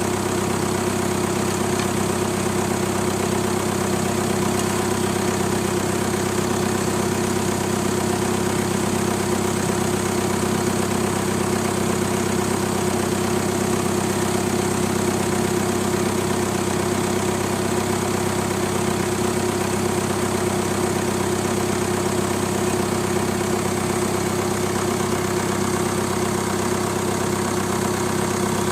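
Steady machine hum at a constant speed, with no change in pitch or level.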